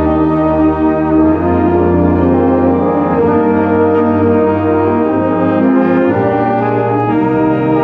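A band, brass to the fore, playing slow, sustained chords that move to new notes every second or so.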